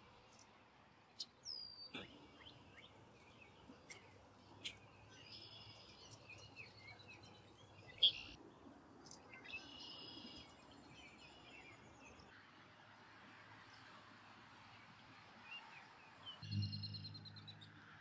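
Scattered bird chirps and short calls over faint outdoor background noise. The loudest is a sharp call about eight seconds in, and near the end a brief call comes with a low hum beneath it.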